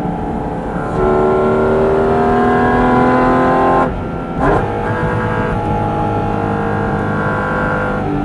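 Sports car engine pulling hard under acceleration, its pitch climbing for about three seconds. A quick upshift just before four seconds in drops the pitch, and it then runs steadier in the next gear.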